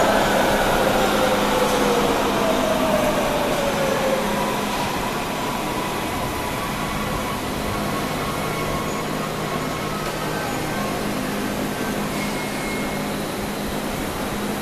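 MARTA rapid-transit train's traction motors whining and falling in pitch as the train slows in the station. After about four seconds this gives way to a steady hum and ventilation hiss.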